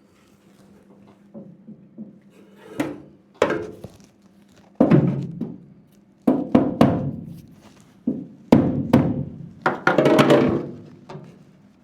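A run of heavy thunks and knocks on car-body sheet steel, some ringing briefly, as a wheel-arch repair panel is knocked into shape through a block of timber. The knocks come in irregular groups of one or two, the loudest cluster near the end.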